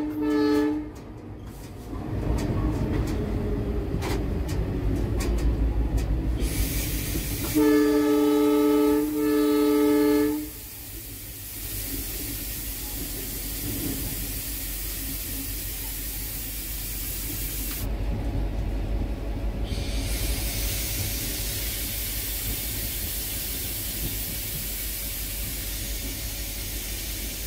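Locomotive horn on an EMD WDP4 diesel-electric sounding from the cab: a blast that cuts off just under a second in, then two more blasts in quick succession about eight and nine seconds in. Between and after them the 16-cylinder 710 diesel engine and the wheels on the rails keep up a steady low running rumble, with a hissing rush over it for much of the time.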